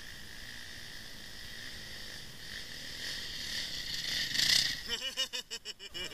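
A Honda CRF dirt bike rides up the trail and passes close about four and a half seconds in, the loudest moment, over a steady high-pitched chorus of insects. A rapid, regular pulsing follows in the last second.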